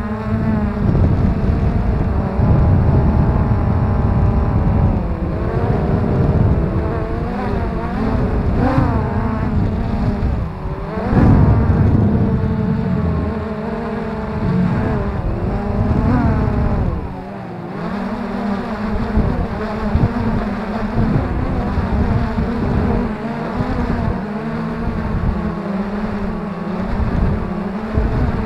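Freex quadcopter's motors and propellers whining, heard from its onboard camera, the pitch rising and falling as the motors change speed. Heavy wind buffeting on the microphone underneath, with a brief drop in level a little past halfway.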